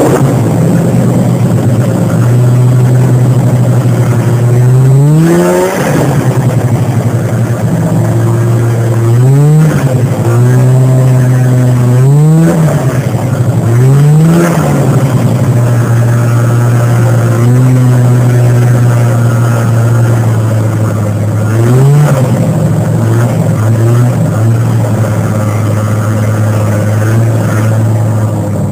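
340 cc two-stroke snowmobile engine running under way at a steady pitch. About half a dozen times it revs up and drops straight back as the throttle is blipped.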